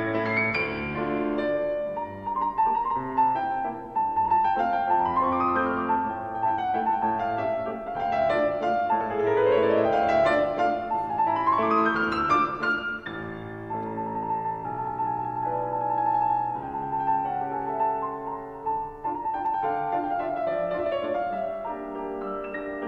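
Solo piano playing a classical piece: a recurring high note over chords, broken by fast rising runs about five seconds and ten seconds in.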